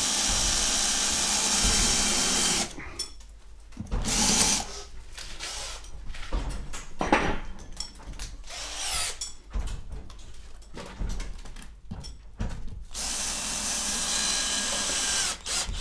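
Cordless drill-driver running overhead against old ceiling plaster, in two runs of a few seconds each: one at the start and one near the end, with short bursts and handling clatter between them. It is recessing holes and driving screws with washers to press loose plaster against the board base.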